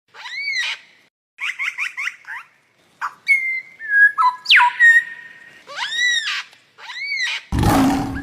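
Loud bird calls: arched, ringing calls repeat several times, with a quick run of short notes and clear whistled notes ending in a falling sweep between them. Near the end a loud, deep roar cuts in.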